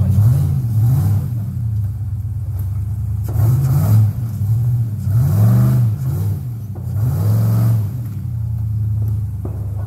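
Off-road rock-crawler engine revved in short bursts, its pitch rising and falling several times as the rig works slowly over boulders.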